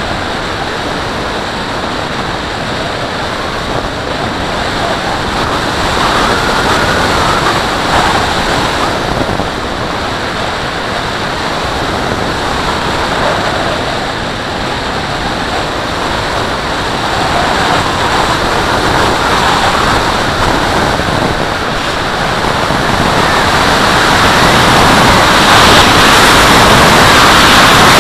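Wind rushing over the microphone of an onboard camera riding on a radio-controlled Valenta Salto H101 glider in flight, a steady rush of air with no motor. It swells and eases with airspeed and grows loudest in the last few seconds.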